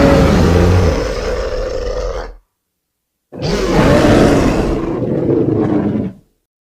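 Created Styracosaurus roar sound effect: a deep, pitched roar already sounding at the start ends about two and a half seconds in, and after a second of dead silence a second roar of about three seconds follows and stops.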